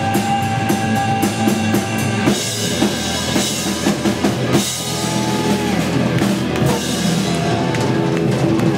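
Live rock drum kit played hard: a run of fast, even drum strokes, then crashing cymbals from about two seconds in, with the bass drum underneath. Sustained guitar and bass notes ring beneath the drums.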